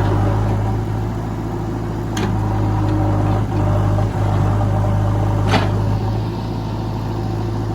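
JCB backhoe loader's diesel engine running steadily with a deep hum. Two sharp metallic knocks come about two seconds in and again about five and a half seconds in.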